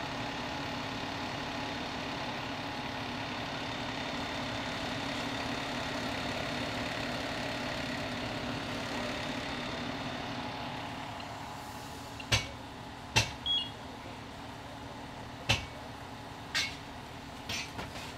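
Large vehicle engine running steadily, a low droning hum with a whine above it, which eases off about eleven seconds in. After that come several sharp knocks or clanks, a few seconds apart.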